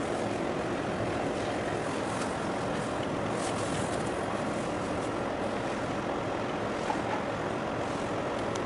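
Steady noise of a harbour boat under way: its engine running and water rushing and splashing past the hull, with some wind on the microphone.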